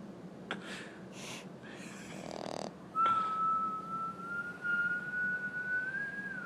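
A sleeping French bulldog puppy snores, with several short snorting breaths in the first couple of seconds. About three seconds in, a long, thin whistle begins, rises slightly in pitch and holds to the end.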